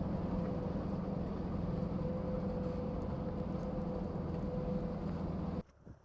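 A vehicle engine running steadily with a low hum and a faint held tone, stopping abruptly near the end.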